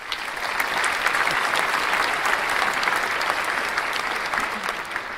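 Crowd applauding, a dense steady clapping that eases off slightly near the end.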